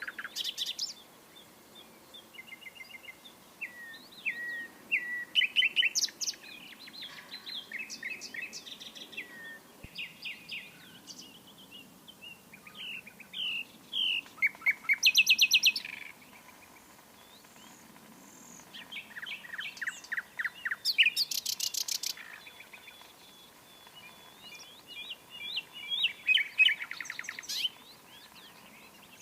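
Nightingale singing: a string of varied phrases broken by short pauses, mixing clear whistles, chirps and fast repeated-note trills, the loudest trills about halfway through and again a few seconds later.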